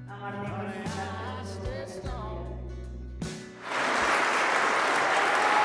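Music with a singing voice over bass notes, broken off about three and a half seconds in by a crowd applauding, which is louder.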